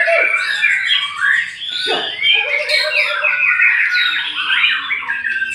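Songbird singing a fast, varied, unbroken song of chirps and trills.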